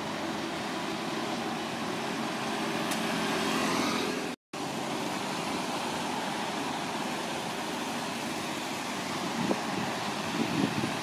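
Busy city road traffic, vehicles passing and the noise swelling up to a brief cut in the sound about four seconds in. Afterwards a red double-decker bus drives close past, its engine and tyres heard over the traffic, with a few short knocks near the end.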